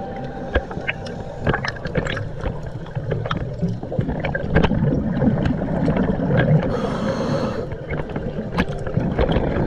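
Scuba regulator breathing heard underwater: a gurgling rush of exhaled bubbles builds, then a brief hiss of inhalation comes about seven seconds in. Scattered sharp clicks run throughout.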